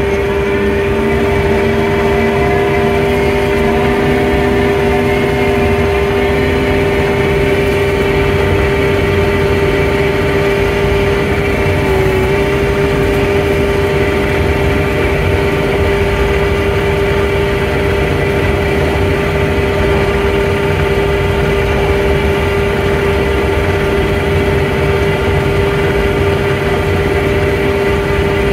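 Engine of a snow-plowing vehicle running steadily while its front blade pushes snow, with a steady whine over the engine sound.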